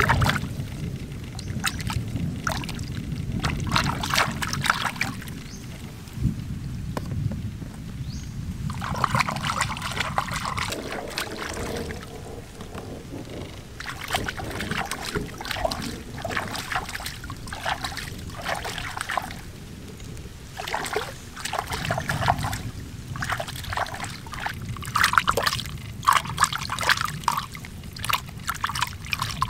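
Water sloshing and splashing in uneven clusters of strokes, over a steady low rumble.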